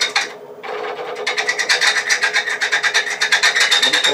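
A high-speed steel bit taking light cuts on a threaded brass plumbing fitting spinning on a lathe at about 600 RPM, cutting the threads down for a ferrule. It makes a rapid rasping chatter, briefly dropping off about half a second in before running on.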